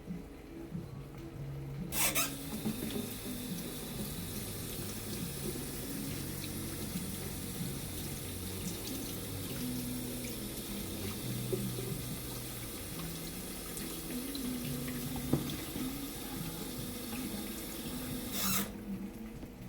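Kitchen tap turned on about two seconds in, water running into the sink steadily, then shut off near the end.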